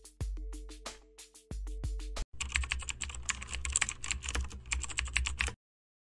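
Electronic background music with a drum beat stops a little over two seconds in. Then comes a rapid keyboard-typing sound effect, a dense run of clicks over a low hum, which cuts off abruptly about half a second before the end.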